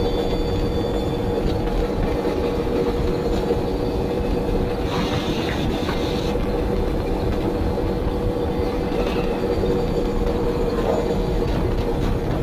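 CFMoto CForce 800 ATV's V-twin engine running steadily with a low rumble and a held drone, and a brief hiss about five seconds in.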